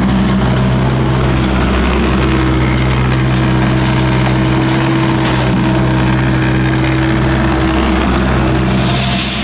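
Kobelco SK50 mini excavator's diesel engine running steadily under hydraulic load while the machine swings and dumps its bucket. The engine note dips briefly about two seconds in and again near the end.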